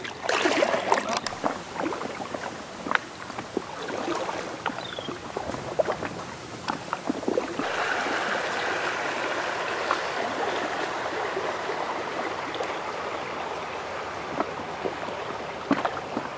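Water splashing and dripping around a paddled inflatable canoe, with short splashes in the first half; then, about halfway through, a steady rush of flowing river water comes in and holds.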